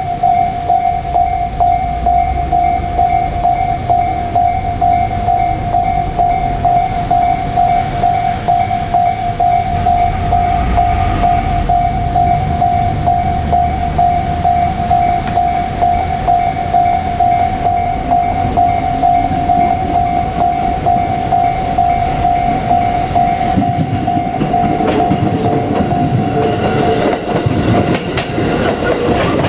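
A level-crossing warning bell ringing on one steady high tone over the low rumble and clatter of JR Kyushu 787-series electric trains passing. The clatter grows over the last few seconds, and the bell cuts off right at the end.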